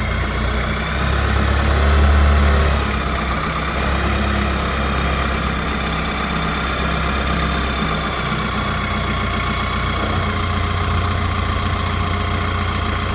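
Branson F50 compact tractor's diesel engine running just after starting, with a brief swell in level about two seconds in before settling to a steady idle.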